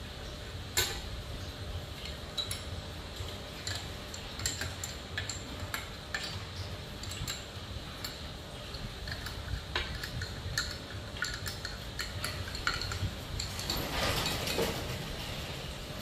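Irregular metal clicks and clinks of a combination wrench on the gib bolts of a wood planer's cutterhead as they are turned to fasten the new knife, with a short scrape near the end. A steady low hum runs underneath.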